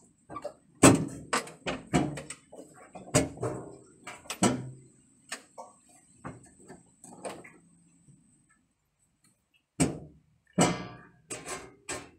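Irregular clunks, knocks and rattles of a Goldoni two-wheel walking tractor being manhandled into the empty metal cargo area of a van, with no engine running. The knocks come in clusters, with a pause of about two seconds a little after the middle.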